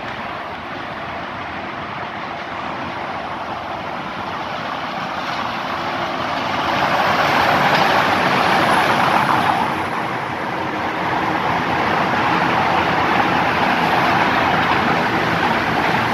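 Road traffic inside a concrete road tunnel. A lorry drives through, loudest about seven to nine seconds in, then a coach comes up and passes close near the end.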